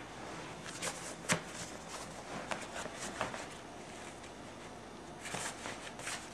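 Rustling and handling of a fabric leg pouch and its nylon straps, with scattered short clicks and taps; one sharper click about a second and a half in and a busier patch of rustling near the end.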